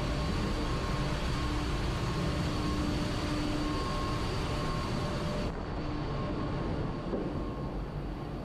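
Ship's engine-room machinery running: a steady, dense mechanical noise with a few faint steady tones in it, the high end turning duller about five and a half seconds in.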